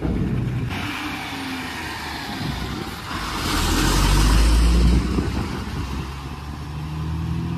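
Tata tipper truck's diesel engine running as the truck drives slowly past at close range, with a rush of hiss joining about a second in. The low rumble swells loudest around the middle as the rear wheels go by, then eases off.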